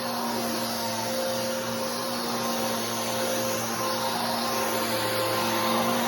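Bissell Powerforce Helix 3313 upright vacuum running steadily, a constant motor hum over the rush of air. Its filter is completely plugged up, so the suction is weak.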